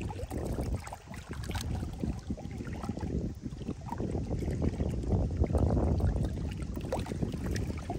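Wind rumbling on the microphone over lake water lapping at the shore, with a few small splashes and ticks.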